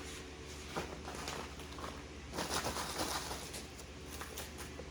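Irregular rustling and light knocks of hands handling frozen vegetable peels and kitchen containers.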